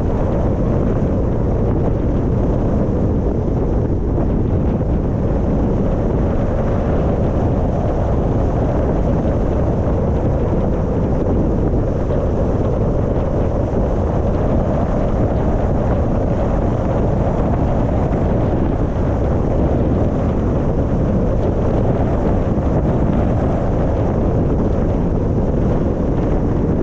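Steady low rumble of wind buffeting the microphone, mixed with the road noise of a moving car.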